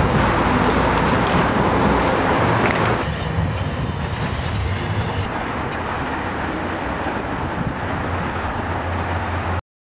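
Construction site noise: a hydraulic excavator's diesel engine running as it digs, with a few faint clanks. About three seconds in the sound drops and becomes a lower, steadier hum.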